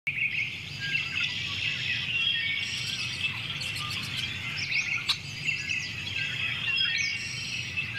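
A chorus of many birds chirping and singing at once, with dense overlapping calls and short gliding notes and a faint low rumble underneath.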